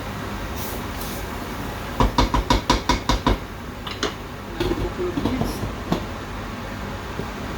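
Kitchen utensil clatter against dishes or pots: a quick run of about eight sharp knocks, roughly six a second, then a few scattered clinks, over a steady background hum.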